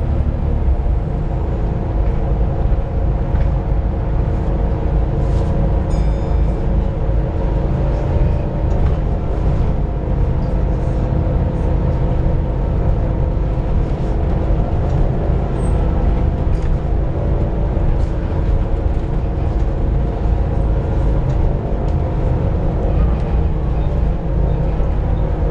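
Volvo B7TL double-decker bus running, heard from on board: a low engine rumble with several steady whining tones above it.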